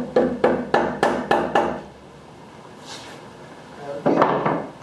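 A hammer knocking on a wooden tapping board, about seven quick blows in the first two seconds, driving a roof spar into place. A brief noisy burst a little after four seconds in.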